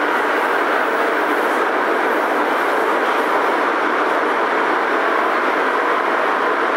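Prague metro M1 train running at steady speed between stations, heard from inside the car: an even rumble and rush of wheels on rail with a faint steady hum.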